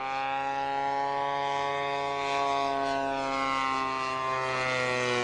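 Model aircraft engine running at a steady speed, a propeller drone holding nearly one pitch with only a slight drift.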